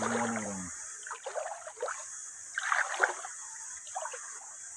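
River water sloshing and splashing in short, irregular bursts, over a steady high hiss. A brief low voice sounds at the very start.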